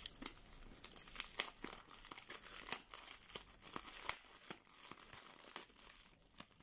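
Thin plastic bag crinkling as hands handle and open it, in many irregular sharp crackles.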